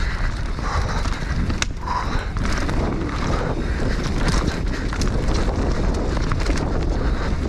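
Wind buffeting the action-camera microphone over the rumble of Michelin DH34 downhill tyres rolling fast over a dirt trail on a descending mountain bike. Occasional sharp clicks and knocks from the bike over bumps.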